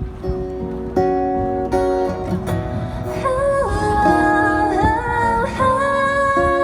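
A song playing: acoustic guitar chords, with a higher melody line with sliding pitches coming in about three seconds in.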